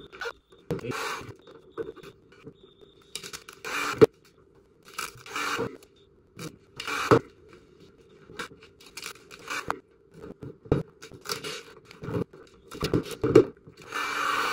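Vinyl wrap film being worked down onto a plastic car headlight over knifeless tape: short, intermittent scraping strokes with gaps between them, and a few sharp clicks.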